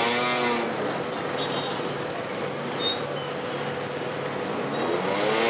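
Ferry's diesel engine running steadily with a rattling throb. Two short pitched sounds that bend in pitch break in, one at the start and one at the end.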